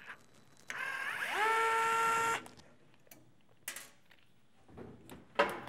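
A screw squeals as it is forced with a Phillips screwdriver in the metal chassis of an 8-track player. It gives one pitched squeal that rises and then holds for about a second before cutting off, followed by a few light clicks and a sharper click near the end.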